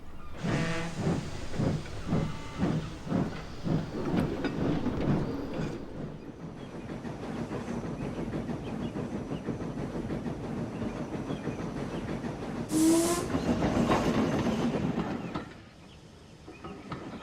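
Steam locomotive chuffing away at about two and a half puffs a second, then running on in a steady hiss and rattle. A brief loud burst of hiss with a short tone comes about thirteen seconds in, and the sound drops away near the end.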